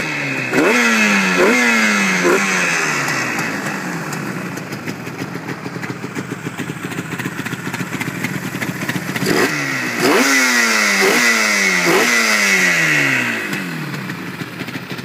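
1977 Yamaha RD400's 399cc two-stroke twin idling and blipped by hand on the throttle. A group of quick revs near the start and another about ten seconds in each fall back to idle.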